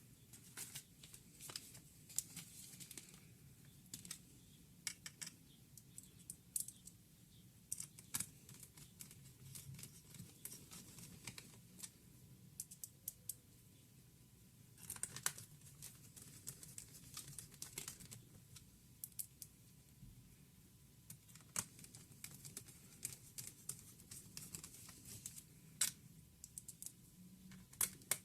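Faint, irregular small clicks, taps and short scraping rustles of hands working on a laptop's opened internals with small tools and parts.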